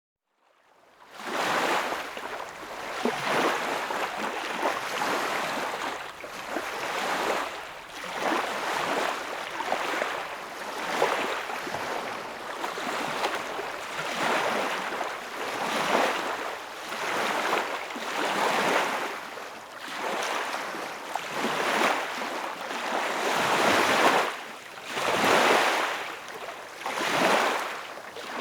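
Water rushing and splashing in repeated surges, each swelling and ebbing over two to three seconds. It fades in about a second in, and the surges grow more distinct near the end.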